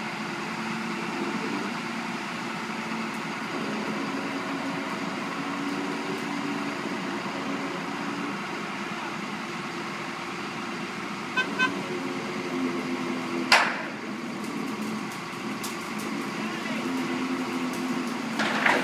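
Diesel engines of heavy construction machinery running steadily, their pitch shifting a little. There are two short horn toots about eleven seconds in, a single sharp bang a couple of seconds later, and repeated knocks starting near the end.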